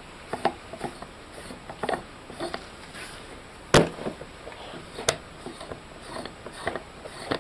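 Threaded faceplate being fitted and screwed by hand onto a Spartek wellhead pressure recorder: light scattered clicks and scrapes of the housing and threads, with a sharp click about halfway through and another a second or so later.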